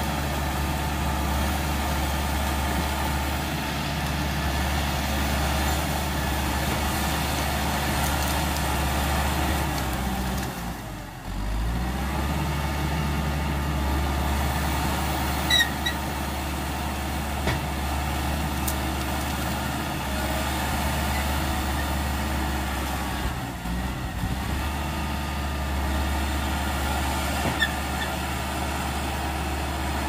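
Caterpillar D5K XL crawler dozer's diesel engine running steadily under load as it pushes brush and earth with its blade, the engine note dipping briefly twice. A few faint sharp ticks sound over it.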